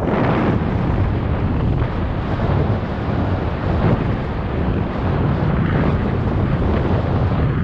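Wind buffeting a GoPro Hero 7 Black's microphone at cycling speed: a loud, steady rush, heaviest in the low end.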